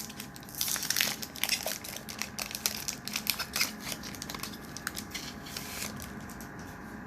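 Foil wrapper of a Pokémon Silver Tempest booster pack being torn open and crinkled by hand: a dense run of crackles over the first few seconds, thinning out toward the end.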